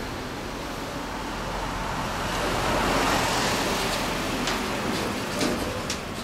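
Road-vehicle noise swells to a peak and fades over about three seconds, as a vehicle passing by would. A few short sharp clicks follow near the end.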